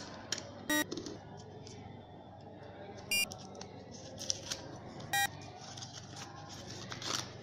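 Paper bill and packaging being opened and handled, with faint rustling and small clicks. Short, high-pitched tones sound three times, about a second in, a little after three seconds and about five seconds in, and are louder than the handling.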